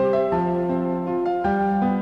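Background music: keyboard, electric piano in tone, playing a gentle melody over held chords.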